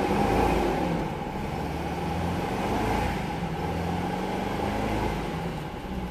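A 1982 Pontiac Trans Am's 305 V8 engine running at about idle, heard from inside the cabin. Its level and pitch swell slightly near the start and again about three seconds in.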